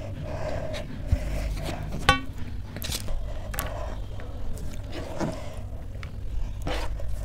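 Close-miked eating sounds: fingers working rice on a steel plate and picking up shredded raw salad, a run of small clicks and rustles with one sharp click about two seconds in.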